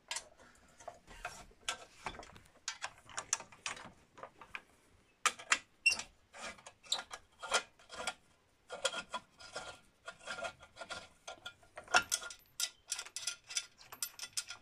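Irregular metallic clicks, taps and rattles of a coil-over shock, its mounting bracket and screws being handled and fitted by hand, with clusters of quick clicks after about five seconds and again near the end.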